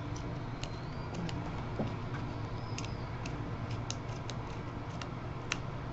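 Light, irregular clicks and ticks, a few a second, from a small Phillips screwdriver turning an M3 bolt into its nut on a plastic geared DC motor mount. They sit over a low steady hum.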